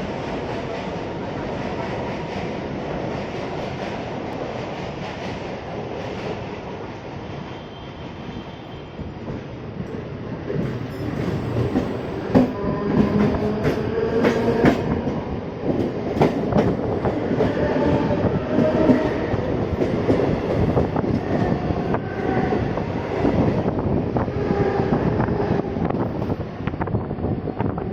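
Passenger train running on rails, a steady rumble that turns into louder clattering over the rail joints about ten seconds in, with frequent clicks and knocks.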